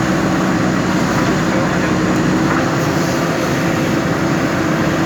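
JCB backhoe loader's diesel engine running steadily under work.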